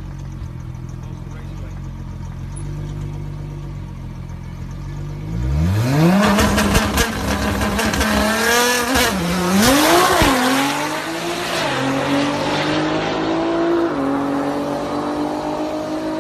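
Car engine idling, then revving up sharply about five seconds in, with a loud rush of noise and the revs swinging up and down. It then pulls away, pitch climbing steadily, with one drop like an upshift a couple of seconds before the end.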